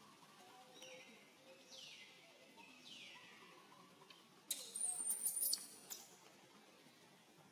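Baby macaque squealing: a few high-pitched cries that fall in pitch, then a louder, shrill scream lasting about a second, starting a little after halfway. These are a distressed infant's cries while it is alone on the ground.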